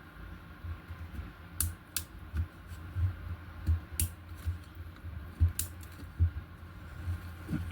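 Irregular light clicks and taps, about one or two a second, of small parts and tools being handled during repair work on removed TV speakers, over a steady low hum.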